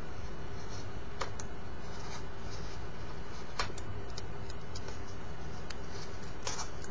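X-Acto craft knife cutting through the end of a small paper-covered tray: a few faint clicks and ticks as the blade works through, over a steady background hiss.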